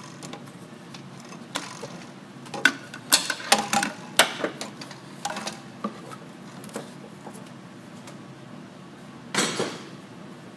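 Metal tools and engine parts clinking and knocking during serpentine belt removal: scattered sharp clicks, a cluster of clatter about three to four seconds in, then a short scraping rustle near the end.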